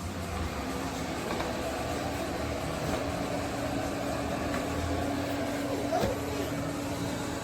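eufy RoboVac 11S Max robot vacuum running with a steady hum of its fan and brushes, with one short knock about six seconds in.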